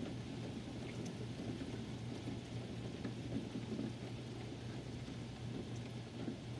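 Steady rain falling during a thunderstorm: an even hiss with a few faint drop ticks, over a steady low hum.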